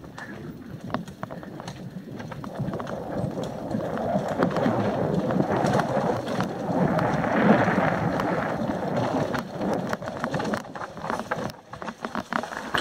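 Mountain bike descending a rocky dirt trail, heard from a rider-mounted action camera: a continuous rush of tyres rolling over dirt and stones that builds to its loudest around the middle, with many sharp knocks and rattles from the bike over the bumps.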